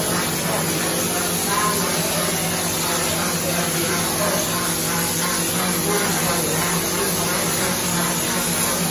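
Mortar spray gun hissing steadily as compressed air blasts wet mortar onto a brick wall, over a steady machine hum.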